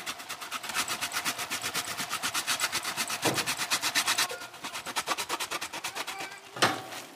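Pecorino cheese being grated in fast, even scraping strokes, about eight or nine a second, which go fainter about four seconds in. Two knocks: a light one about three seconds in and a louder one near the end.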